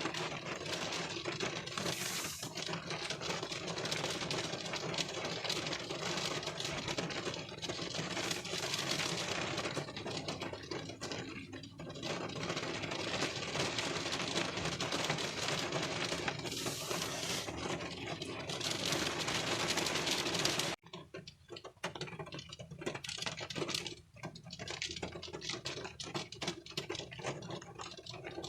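Rain pattering on a car's windshield, heard from inside the car as a dense, steady crackle of drops. About 21 seconds in it cuts off abruptly and resumes as a lighter, more scattered patter.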